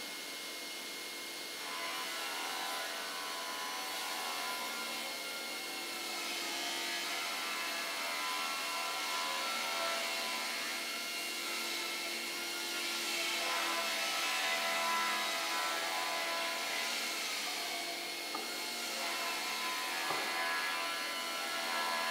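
Martin sliding-table panel saw running, its blade cross-cutting a glued-up wooden panel pushed through on the sliding carriage. The steady machine hum carries a noisy sawing sound that swells, loudest about two-thirds of the way through.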